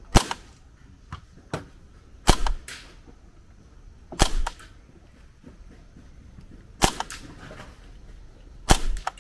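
Airsoft M1 carbine replica fired five times in single sharp shots about two seconds apart, each report followed within a fraction of a second by a fainter second crack.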